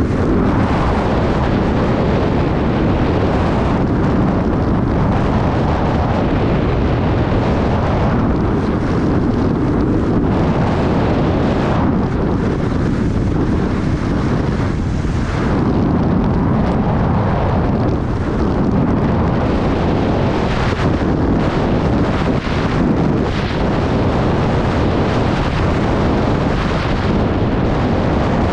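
Steady wind buffeting a helmet-mounted GoPro microphone while skiing downhill at speed, mixed with the hiss of skis running over groomed snow.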